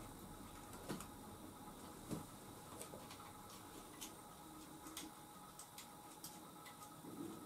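Faint, irregular light clicks and taps, scattered every second or so, from small parts being handled during moped wiring work, over a faint steady hum.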